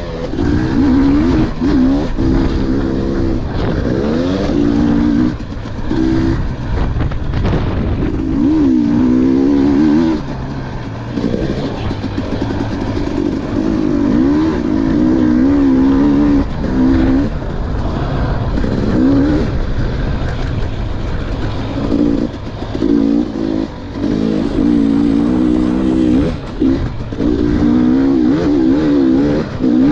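KTM dirt bike engine heard from on board, revving up and down over and over as the rider works the throttle. Its pitch rises and falls through the gears, with short dips every few seconds where he backs off.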